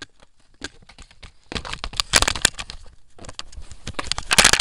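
Handling noise close to the microphone: irregular clicks, knocks and rubbing as the camera is handled. Faint for the first second and a half, then busier, with the loudest rustle near the end.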